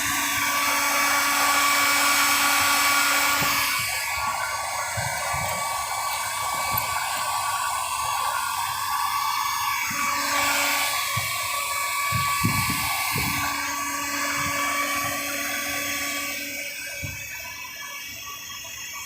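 A high-speed power tool whining steadily, its tone changing about four seconds in and again about ten seconds in, with scattered low knocks.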